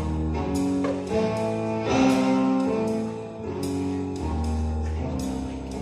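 Instrumental music: sustained melodic notes over a strong bass line, with regular percussive hits.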